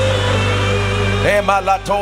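Slow background worship music holding a sustained chord; about a second in, a voice comes in over it with quick syllables.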